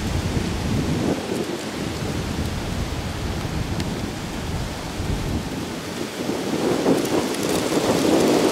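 Gusty wind buffeting the microphone, a rumbling rush that comes and goes and grows louder near the end.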